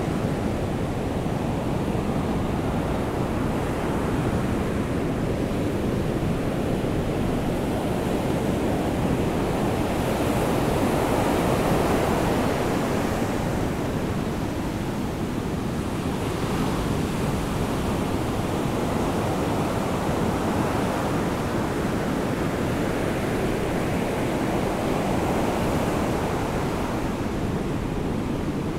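Ocean surf washing onto a sandy beach in the rain: a steady rushing noise that swells twice as waves break.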